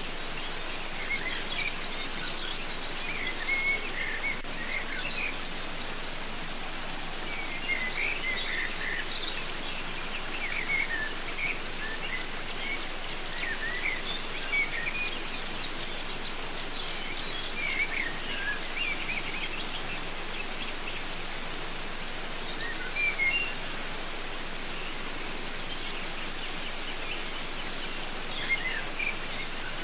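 Steady rush of a waterfall, with small birds chirping and calling in short bursts throughout.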